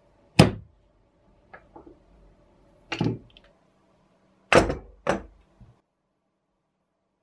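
Hard metal clacks and knocks from a restored brass-and-steel Sanbri bottle corker being handled: a sharp clack about half a second in, a few light clicks, a knock, then two knocks close together as it is set down on a wooden tabletop.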